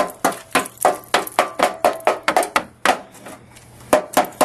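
Rapid strikes knocking freezing-rain ice off a pickup truck's body, about four a second, each hit cracking the ice with a short metallic ring; the strikes pause for about a second near the end, then resume.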